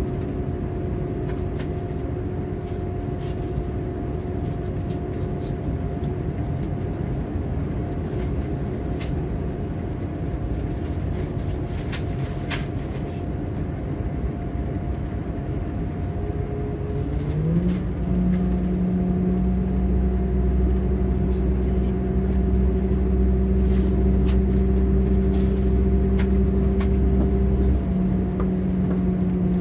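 On board a Class 180 diesel multiple unit running along the line, with a steady hum and a few sharp clicks. A little over halfway through, the underfloor Cummins diesel engine revs up with a rising note and holds a louder, deeper steady drone under power, then eases down near the end.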